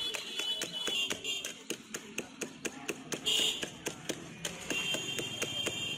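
Metal clinking against a steel mug as juice is stirred in it, about four to five quick clinks a second.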